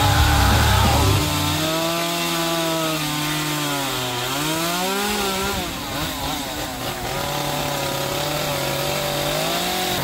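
Two-stroke chainsaw running at high revs while carving wood, its pitch sagging and climbing again as the throttle and the load on the chain change.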